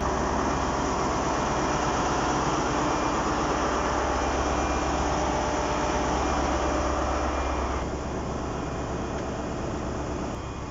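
Class 43 HST power car's diesel engine idling, heard close to its engine-room grille: a steady low hum under a loud rush of cooling air. It drops somewhat in level about eight seconds in.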